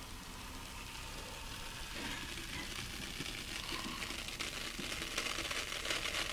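Baking soda and vinegar reacting in a cup: a fizzing, crackling hiss of countless tiny bursting bubbles, growing louder about two seconds in.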